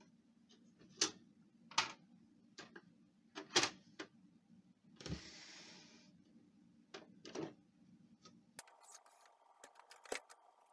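Plastic clicks and knocks from a Pantum P2516 laser printer's casing as its top cover is shut and the printer is handled, with a short sliding scrape about five seconds in.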